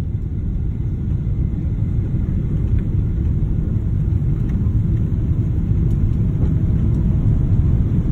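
Cabin noise of an Emirates Boeing 777 at takeoff thrust through the takeoff roll and liftoff: a steady low engine and airflow rumble that grows slightly louder.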